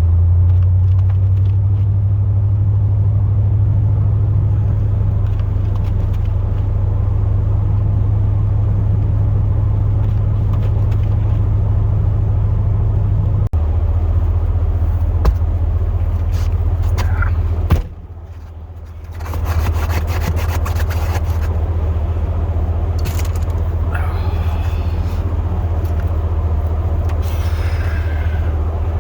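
Steady low drone of a Chevrolet Silverado plow truck heard from inside the cab while driving, with scattered light clicks. About two-thirds of the way through it drops to a quieter stretch for roughly a second and a half, then resumes.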